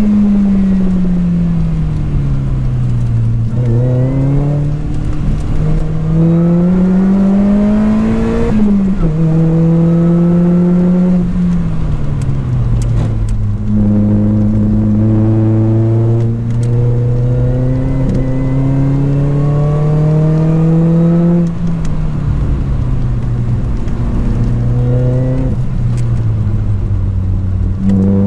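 Lotus Elise 220 Sport's supercharged 1.8-litre four-cylinder engine, through a 2bular H1 aftermarket silencer, under hard lapping: the engine note climbs under acceleration and drops at each gear change, and sinks when the driver lifts off for corners, several times over.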